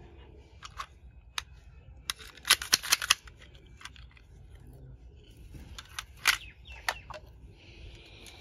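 Toy knife being handled: sharp clicks and snaps, a quick run of several about two to three seconds in and a few single clicks later on.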